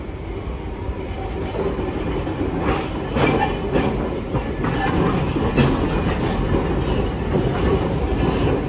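Hiroshima Electric Railway streetcar no. 701 pulling in past at close range, its steel wheels clacking over the rail joints and points in a quickening run from a few seconds in, with short high wheel squeals.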